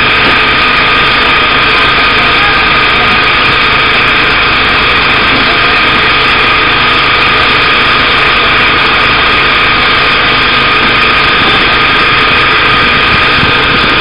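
Fishing boat's engine and deck machinery running in a loud, steady drone with a steady high tone through it, over the hiss of water sprays jetting from the hull, used to lure tuna in for pole-and-line fishing.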